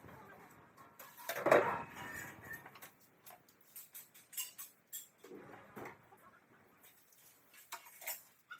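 Metal tools clinking and scraping during concrete work, with a louder scraping rush about a second and a half in, a shorter one near six seconds, and scattered sharp clicks between.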